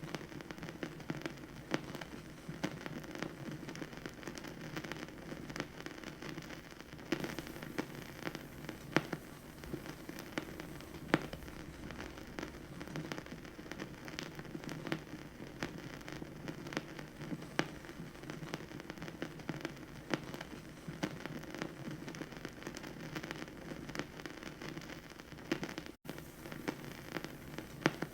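Vinyl record surface noise: a steady hiss over a low rumbling band, dotted with dense small crackles and occasional sharper pops. It cuts out for an instant near the end.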